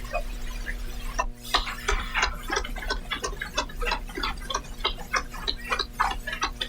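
Applause from members in a parliamentary chamber: a dense, irregular run of sharp claps starting about a second in, over a steady electrical mains hum in the broadcast audio.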